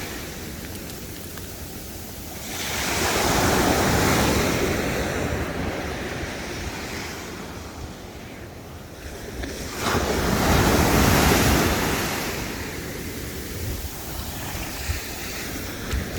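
Ocean surf breaking and washing up the beach, swelling loudly twice, about three seconds in and again about ten seconds in, with wind buffeting the microphone.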